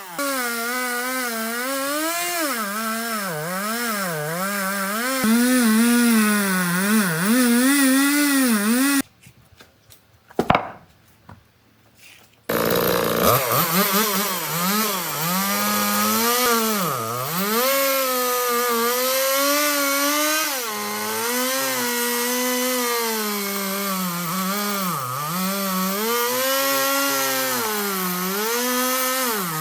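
Chainsaw cutting into wood, its engine pitch dipping and rising over and over as the chain bogs in the cut and clears. It stops for a few seconds about a third of the way through, then runs on cutting.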